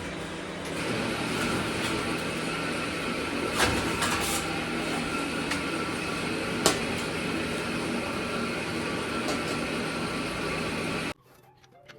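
A steady mechanical hum with a few sharp clicks and taps, cutting off abruptly about eleven seconds in.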